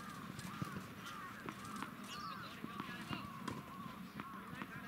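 Distant shouts and calls of youth soccer players on the pitch, many short cries overlapping, with a few sharp knocks among them.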